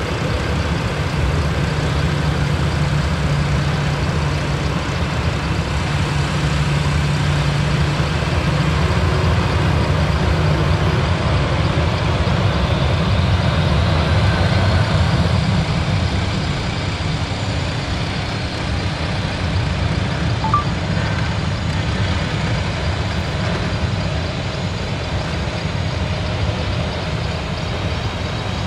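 Boeing 737-800's CFM56-7B jet engines running at low taxi power, a steady rumble and hiss with a faint whine that rises and falls partway through. A brief high blip sounds about two-thirds of the way in.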